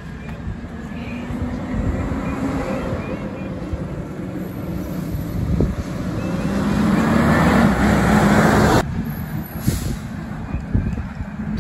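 Garbage truck running, its engine rumble building to a louder rush of noise that cuts off suddenly near the nine-second mark.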